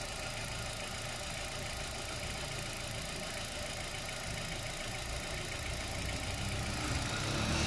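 Hyundai car engine idling steadily, warm and running with its front oxygen sensor switching between rich and lean. It gets a little louder near the end.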